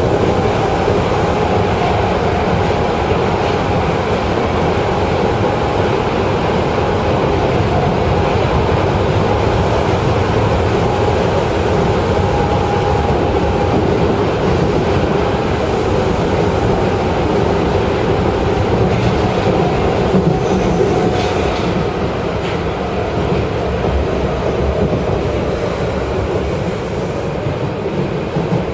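Osaka Municipal Subway Midosuji Line 21 series train running, heard from inside the car: a steady wheel-and-rail rumble with a faint whine that slides a little lower in the second half.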